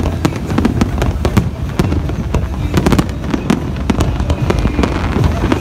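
Fireworks display going off: many sharp cracks and pops in quick succession over a continuous low rumble of bangs.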